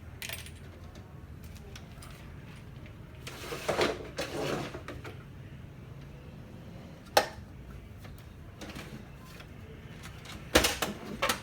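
Plastic housing parts of a laser printer being handled during disassembly: a scraping rattle, a single sharp click a few seconds later, then a few knocks near the end.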